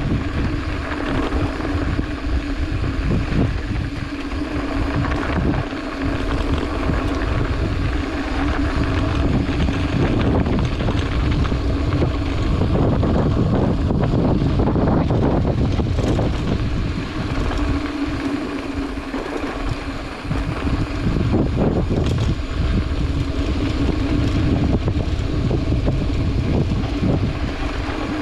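Mountain bike rolling down a dirt trail: wind buffeting the microphone over tyre rumble, with a steady hum that drops out for a few seconds midway.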